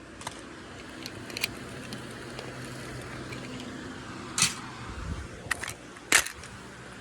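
Car cabin: a steady low engine and road hum, with several scattered clicks and knocks. The loudest knocks come about four and a half and six seconds in.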